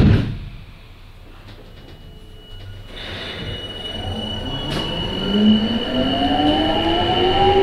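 Sapporo subway Namboku Line rubber-tyred train: a thump of the doors shutting at the start, then about three seconds in it pulls away, its motor whine rising steadily in pitch as it accelerates, over a steady high tone.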